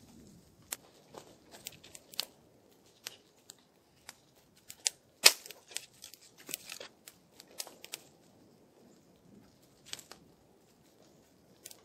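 Small fire of dry twigs crackling with irregular sharp pops and cracks, one loud crack about five seconds in, and the rattle of sticks being laid on the fire.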